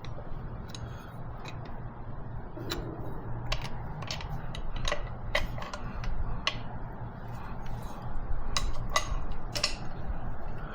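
Irregular metallic clicks and clinks of a wrench working the injector hard-line fittings on a Kubota V2203 diesel engine, over a steady low hum.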